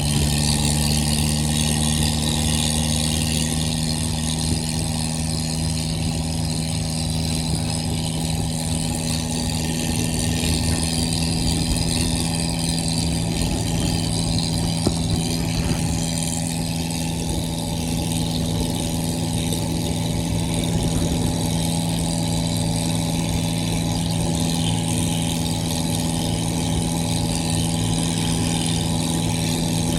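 Modified tractor's diesel engine running steadily at an even speed.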